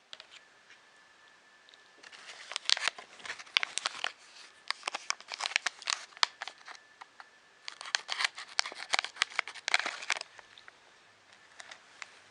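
Plastic packaging crinkling and crackling as it is handled and opened to get a circuit board out, in three bouts of a couple of seconds each.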